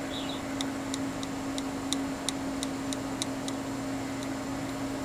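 A run of light, sharp ticks, about three a second, that stops after about three seconds, over a steady low electrical hum.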